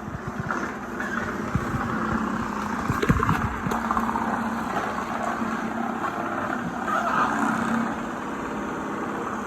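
Shark robot vacuum and mop running: a steady motor whir with brush noise and scattered knocks and clatter, the loudest knock about three seconds in.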